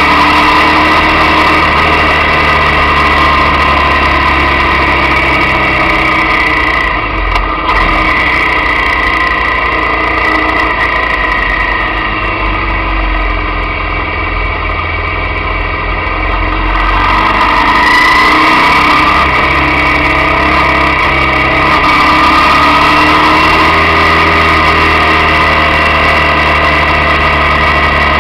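Motorcycle engine running at speed, heard close through a camera mounted on the bike. The engine note eases off about seven seconds in and rises again around eighteen seconds.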